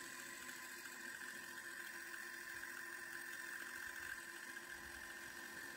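JVC TD-W106 cassette deck rewinding a tape: a faint, steady mechanical whir of the transport motor and spinning reels.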